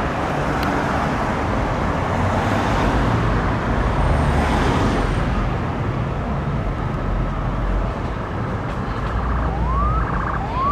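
Steady city traffic noise from engines and tyres. About nine seconds in, a police car siren cuts in with short rising whoops, two in quick succession.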